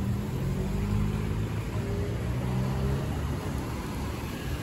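Car engine running low and steady as the car passes slowly close by in congested street traffic, over a constant background of traffic noise.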